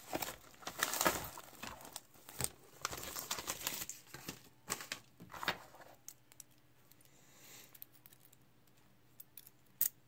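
Paper envelope and lock packaging crinkling and tearing as it is handled and opened, dense for the first few seconds. It then goes quieter, with a few isolated sharp clicks, one near the end.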